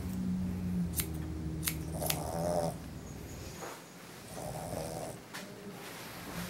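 Small dog making short throaty grunting sounds, three times about two seconds apart, with a few sharp snips of grooming shears near the start, over a low hum that stops about halfway through.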